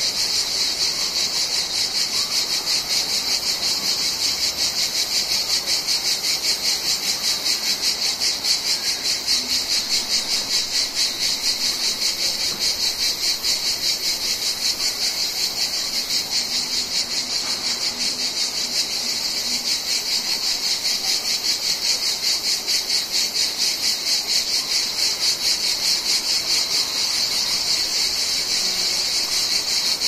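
Cicadas singing: a steady, high, shrill buzz with a fast, even pulsing throb.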